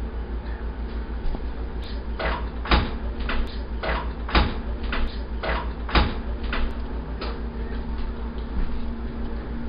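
A run of sharp knocks and clatter as an electric range's oven door is opened, the loudest a few seconds in. A steady low hum runs underneath.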